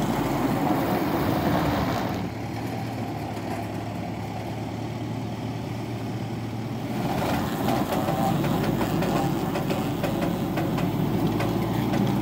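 Mitsubishi Pajero SUV engine running under load as the front tyre turns on iron rails laid in a sandy rut. The engine eases off about two seconds in and picks up again about seven seconds in, with scattered clicks after that.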